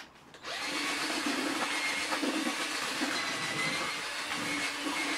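Cordless drill spinning a paddle mixer through damp groundbait in a plastic bucket to aerate the mix. It is a steady motor hum over the rushing noise of the paddle, starting about half a second in.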